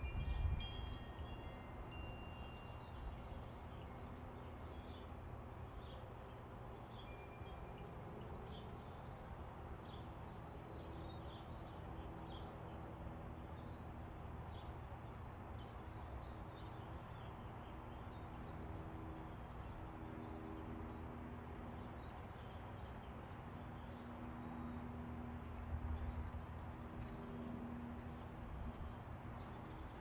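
Two small metal-tube wind chimes hanging in a lemon tree, ringing now and then in a light breeze, with several clear high tones in the first few seconds. A low rumble of breeze on the microphone swells at the start and again near the end.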